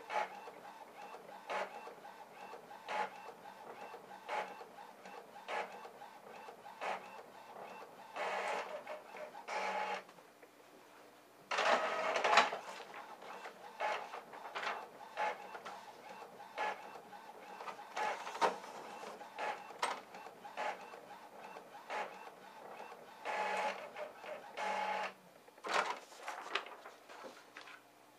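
Epson Stylus Photo PX650 inkjet printer working through its mechanism: a regular click about every second and a half, broken three times by a few seconds of motor running, loudest a little before the middle.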